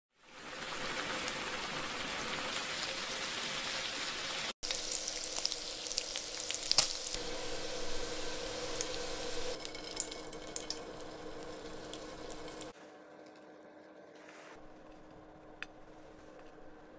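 Bacon frying in a pan: a steady sizzle, with sharp crackles and pops of spitting fat after a brief break about four and a half seconds in. About thirteen seconds in the sizzle cuts off, leaving a much quieter room with a few light clicks.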